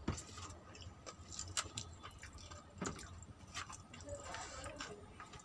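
Eating by hand: fingers squishing and mixing rice on a plastic plate, with chewing and mouth sounds. These come as a scatter of soft wet clicks and smacks over a faint low hum.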